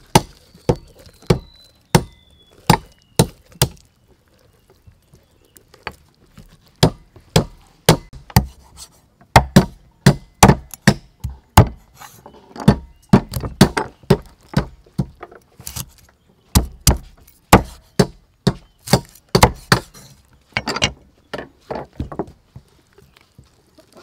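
Heavy cleaver chopping on a thick wooden chopping board, cutting the claws off a raw chicken's feet: a string of sharp chops with a short pause about four seconds in, then quicker runs of chops.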